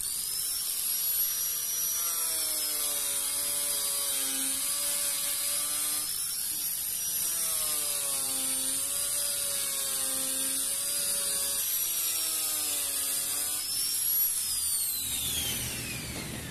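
Angle grinder with a disc grinding and polishing a stainless steel weld, its high motor whine wavering in pitch as the disc bears on the metal. Near the end it is switched off and the whine falls away as the disc spins down.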